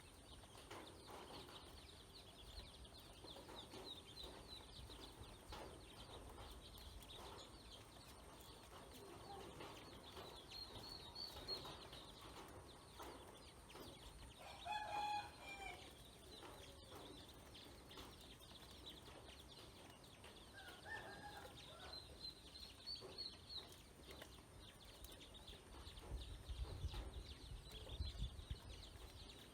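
Faint poultry calls: thin high cheeping throughout, with a short pitched fowl call about halfway through and another a few seconds later.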